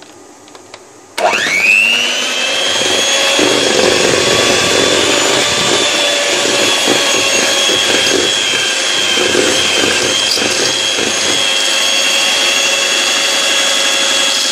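Electric hand mixer switched on about a second in, its motor quickly spinning up to a steady high whine as the beaters whisk flour into an egg-and-sugar cake batter.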